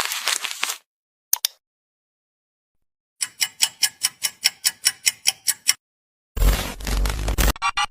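A string of separate sound effects: a short noisy burst that cuts off, a single click, then a rapid, even run of sharp ticks, about six a second, lasting a couple of seconds, and near the end a loud burst of noise with a heavy low rumble.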